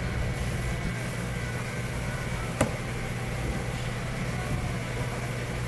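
Steady low mechanical hum with a faint high whine, and one sharp knock about two and a half seconds in.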